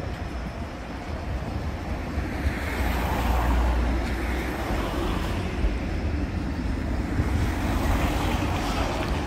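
Tatra overhead-line inspection tram running past over newly laid track, its wheels and running gear rumbling on the rails. It gets louder about three seconds in as it comes closest, and stays up as it rounds the curve.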